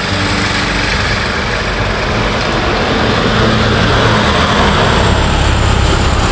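A city bus drives past close by, its engine running under steady road noise. The sound grows a little louder from about four seconds in as the bus goes by.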